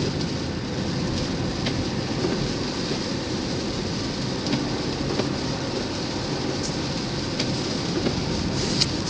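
Steady rumbling road and tyre noise of a vehicle driving on a snowy, icy road, with scattered faint ticks.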